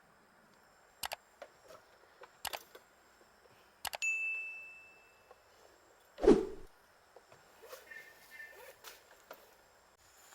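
Scattered clicks and knocks of gear being handled. About four seconds in, a metal object is struck once with a ding that rings on and fades over a second or so, and a heavier, duller thump follows a couple of seconds later.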